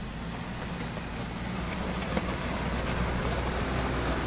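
Hyundai Galloper 2.5 TCI turbo-diesel engine running at low speed, growing louder as the SUV rolls closer over loose gravel, with tyre noise on the stones and a single short click about two seconds in.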